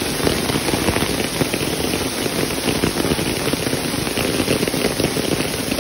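Hail falling on a street: a dense, steady crackle of countless small pellets striking the pavement.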